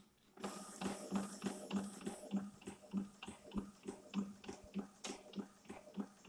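Epson L220 inkjet printer printing: the print head carriage shuttles back and forth with a regular ticking, about three strokes a second, over a steady hum as the sheet feeds out. It starts about half a second in.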